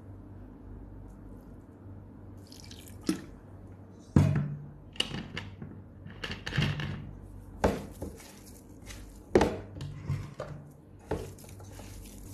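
A hand squishing and mixing thick, wet masala paste of spice powders, ginger-garlic paste, lemon juice and vinegar in a nonstick pot. It makes irregular wet squelches and smacks that start about three seconds in.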